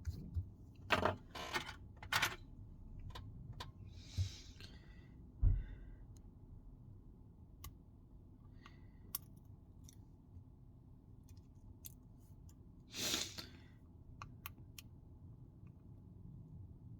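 Scattered small clicks and taps of hand tools and tiny parts being handled on a smartphone during disassembly, with short scraping sounds, a dull knock about five and a half seconds in, and a longer scrape about thirteen seconds in.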